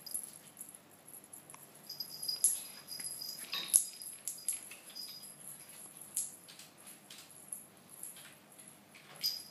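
A fluffy cat teaser toy on a wand and string dragged and flicked across a tile floor: irregular light taps and scrapes, with faint high jingling from its small ball.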